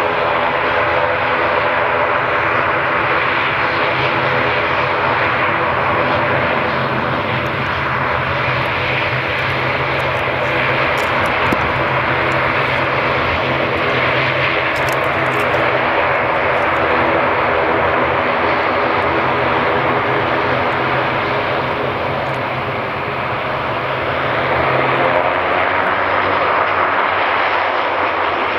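An ATR 72-500's twin Pratt & Whitney Canada PW127 turboprop engines running at low taxi power: a steady propeller drone and turbine whine with several held tones. Near the end the lowest tone drops out and the sound grows slightly louder.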